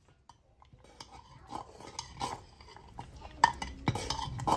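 A ladle stirring thick rice-and-lentil pongal in a brass pot, scraping and clinking against the pot's sides. It starts faint after about a second and grows louder, with the sharpest knocks near the end.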